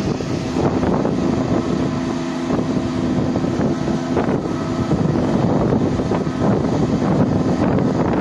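Rice combine harvester's engine running steadily as its unloading auger empties grain into a truck, with wind noise on the microphone.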